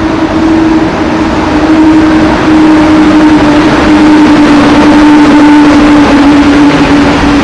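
PKP Intercity electric locomotive and its train passing close by along the platform. A steady humming tone slowly drops in pitch over the rumble of the wheels and running gear.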